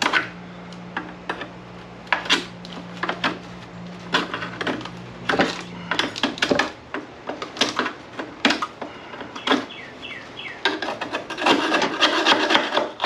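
Irregular scraping, picking and clicking on car-body sheet metal as old, heavily applied seam sealer is worked loose and pulled out of a firewall seam by hand. It gets busier and denser near the end, and a low steady hum runs under it for the first six seconds.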